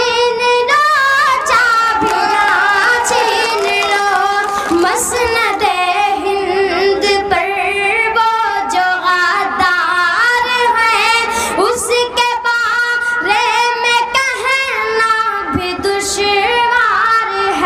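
A boy singing a poem into a microphone, a melodic recitation of held, wavering notes that glide between phrases.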